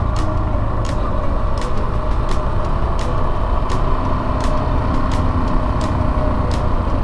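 Yamaha SEROW 250's air-cooled single-cylinder engine running steadily while riding, with sharp ticks roughly twice a second over it.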